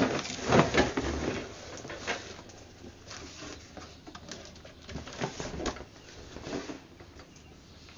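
Cardboard boxes being handled: the printed retail box of a small gas grill is dragged and lifted out of a cardboard shipping carton, with scraping, rustling and knocks. The handling is loudest in the first second and again around five seconds in.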